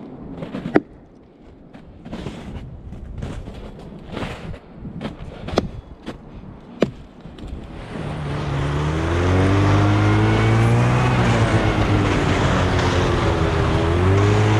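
A few sharp snaps or knocks over a faint background, then about eight seconds in a small engine comes up and runs steadily, its pitch slowly wavering.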